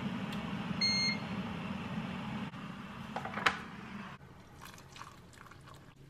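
Glass electric kettle running at a boil, a steady rushing noise with a low hum, with a short electronic beep about a second in. A sharp click comes at about three and a half seconds, the boiling noise stops, and then hot water is poured softly into a glass mug over a tea bag.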